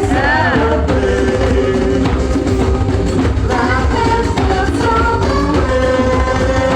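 Loud music with a singing voice over a heavy, steady bass.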